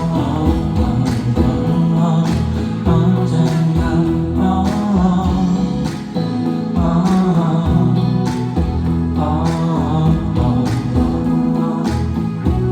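Live pop ballad played by a band, with guitar and a steady beat and a male singing voice over it.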